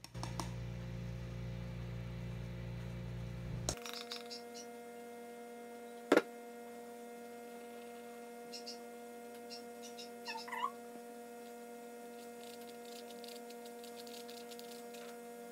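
Steady electrical hum made of several steady tones, whose low part drops away a little under four seconds in. Under it come faint taps and scrapes of a metal mesh sieve being tapped and worked with a spatula, with one sharp knock about six seconds in.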